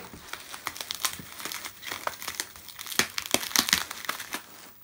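Plastic bubble wrap crinkling and crackling as a wrapped box is handled. The crackles come irregularly, are busiest about three to four seconds in, and die away near the end.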